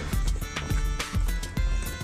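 Background music with a steady, driving beat of kick drum and hi-hats.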